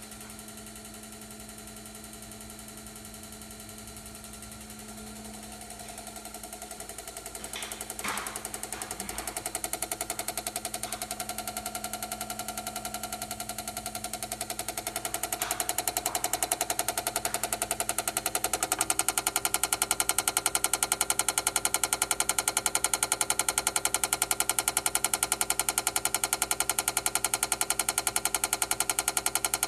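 Malfunctioning Chamberlain garage door opener chattering with rapid, even clicking that grows louder and then holds steady. This is the fault of its failing logic board.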